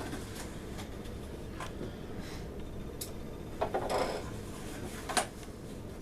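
Handling noises from a mystery box being opened and unpacked: scattered light clicks and rustling, with a louder rustle about three and a half seconds in and a sharp click about five seconds in.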